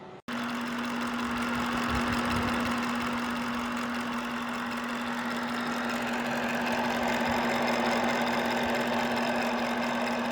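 Small ceramic space heater's fan running: a steady rush of blown air with a constant hum, starting abruptly just after the beginning.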